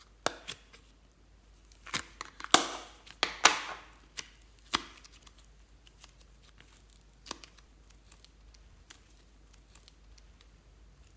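A small plastic case being pried open by hand: a run of sharp plastic clicks and short scraping, peeling sounds over the first five seconds, loudest about two and a half and three and a half seconds in, then quiet handling with a single click later.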